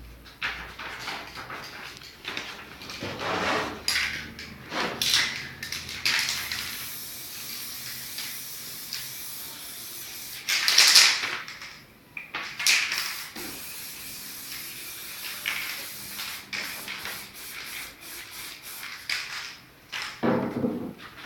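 Aerosol spray paint can spraying in several short hissing bursts, the loudest and longest about halfway through.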